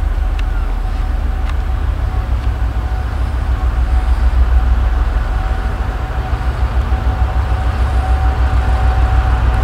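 2M62U twin-section diesel locomotive's two-stroke V12 diesel engines running under load as it hauls a freight train, a steady heavy low rumble with a constant whine above it. A couple of sharp clicks in the first two seconds.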